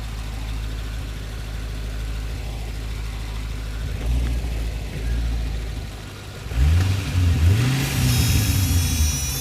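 Pontiac GTO engine idling, then revved in neutral with a few quick taps of the throttle, the revs rising and falling each time. A high-pitched whine comes in near the end. The revving is meant to bring out an unidentified weird noise the owner is trying to trace.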